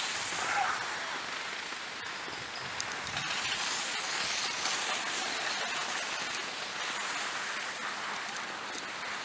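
Steady hiss of skis sliding over snow while being towed uphill on a drag lift.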